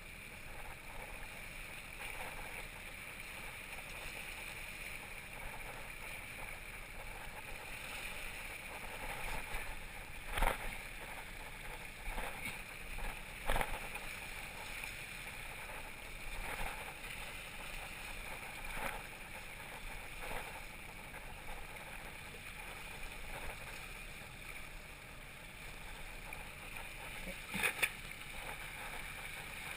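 Sea water rushing steadily along the hull of a moving fishing trawler. A few sharp knocks come as the trawl net is handled at the gunwale: one about ten seconds in, one a few seconds later, and one near the end.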